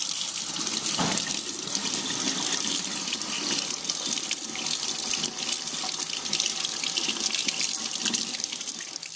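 Kitchen faucet running steadily into a stainless-steel sink, the stream splashing over a turtle's shell and the hand holding it. The flow fades out near the end.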